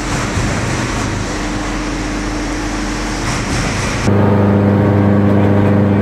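Electric-motor-driven drum wood chipper running: a dense, noisy rush for about four seconds, then an abrupt change to a louder, steady hum.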